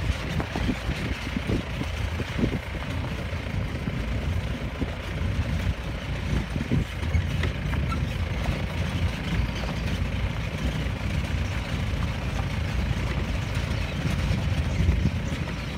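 Safari jeep driving along a forest track: steady engine and road rumble, with a few low thumps from bumps in the first few seconds.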